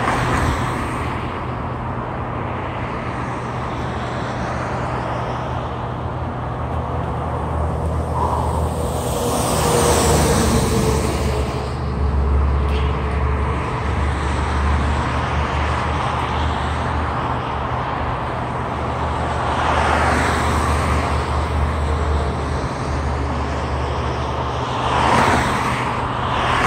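Steady road traffic noise with a low hum, swelling as vehicles pass several times: about ten seconds in, around twenty seconds, and near the end.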